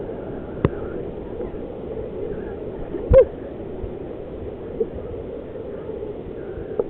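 Waterfall running in a steady rush. A few faint clicks, and one short loud burst about three seconds in.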